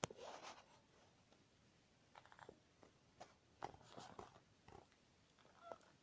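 Faint clicks and scratchy nibbling from a pet parrot, with one short, faint chirp near the end.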